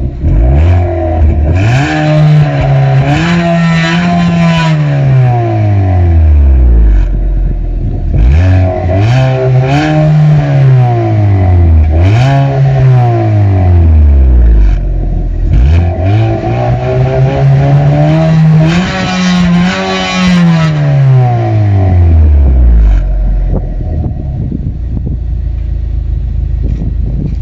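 Lada Vesta 1.8 four-cylinder engine through an aftermarket CBD exhaust on 51 mm pipe, revved up four times and let fall back to idle, then idling near the end. At higher revs the exhaust sounds rattly in places and farty in places.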